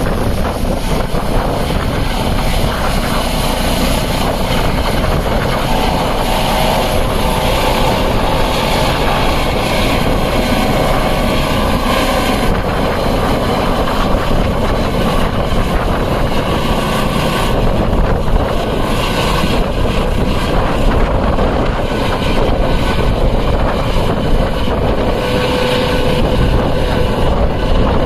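Helicopter lifting off and climbing away, its rotor and turbine noise loud and steady.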